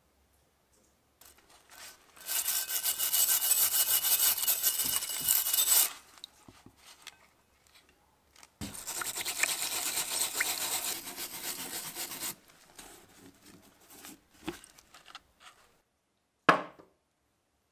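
Small wire brush scrubbing rust off an ornate cast-metal grinder frame in two long spells of rapid strokes. A few light clicks follow, then a single sharp knock near the end as a bottle is set down on the wooden bench.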